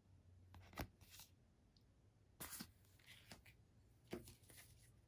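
Near silence broken by a few faint taps and rustles of playing cards being handled and set down on a tabletop mat.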